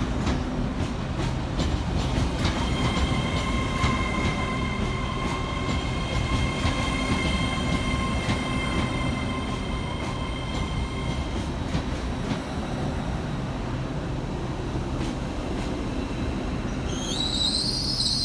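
Passenger trains running through the station with a steady rumble and clicks over the rail joints. Their wheels squeal: a steady high squeal of several tones from about two to eleven seconds in, then a rising and falling squeal near the end.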